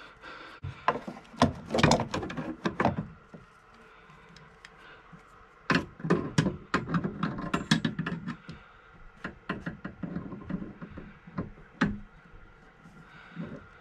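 Wrench and pliers clinking and scraping on a brass ball valve and its compression nut on copper pipe, an irregular run of clicks and knocks as the tools are set and the fitting is tightened further to stop a leak.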